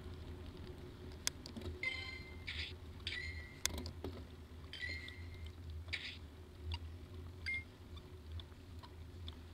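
Steady low rumble of wind and road noise on a bicycle-mounted camera while riding, with four short, high, squeaky chirps between about two and six seconds in and a few sharp clicks.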